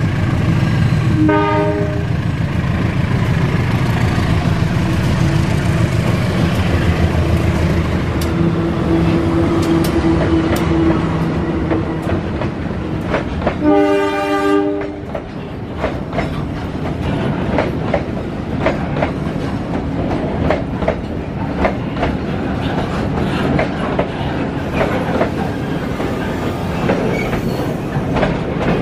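KAI diesel locomotive passing close with its engine running and sounding its horn, a short blast about a second in and a longer one near the middle. After that the fuel tank wagons roll by, their wheels clacking over the rail joints.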